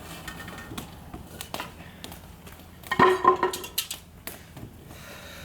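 Bonfire crackling: scattered sharp pops and snaps of burning wood, with a louder clatter of knocks about three seconds in.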